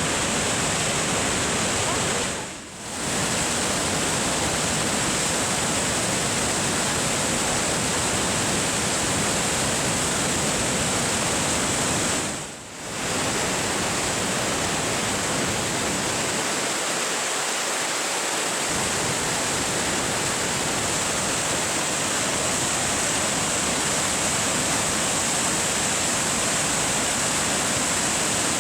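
Waterfall rushing steadily, a dense even noise of falling water, briefly dipping twice.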